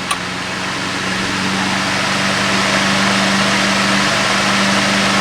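Early Emerson 12-inch brass-bladed table fan with a shaded-pole motor, switched up from low to its second speed with a click near the start. The motor hum holds steady while the rush of air grows louder over the next two seconds or so as the blades speed up, a small step up in speed.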